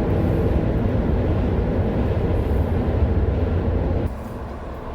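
Road and engine noise inside a moving car, a loud steady low rumble that drops off abruptly about four seconds in.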